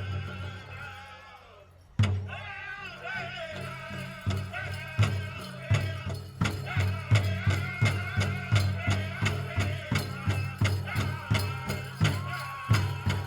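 Powwow drum group: a large bass drum struck in a steady beat, with men singing in high, wavering voices over it. The singing falls away briefly and comes back with a hard drum strike about two seconds in.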